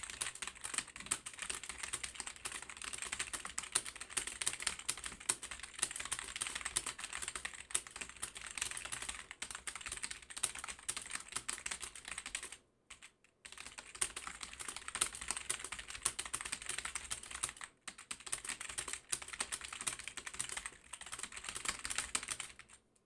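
Fast touch typing on a computer keyboard: a rapid, dense stream of key clicks, with a short break about thirteen seconds in and a brief one near eighteen seconds, stopping just before the end.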